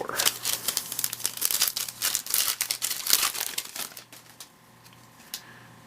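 Packaging of a baseball card blaster box being torn open, with the card pack wrappers crinkling and tearing for about four seconds. It then goes quieter, with a single click near the end.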